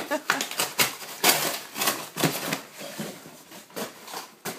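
Great Dane attacking a box, biting and tearing at it: a rapid, irregular run of crunches, scrapes and rustles.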